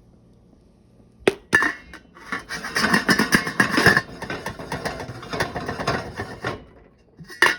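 Freshly popped popcorn rustling and scraping against the pot as it is handled, after a sharp knock about a second in; the rustling is full of small clicks and stops about a second before the end.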